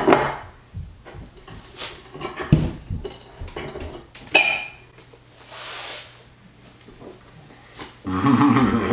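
A plate set down on a countertop, then a metal fork clinking and scraping against the plate while cutting into food, with one sharp ringing clink a little past the middle.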